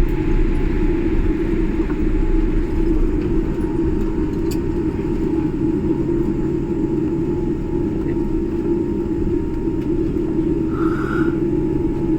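Steady low rumble inside a jet airliner's cabin as the plane moves on the ground after landing, with a faint steady whine above it and a brief higher sound near the end.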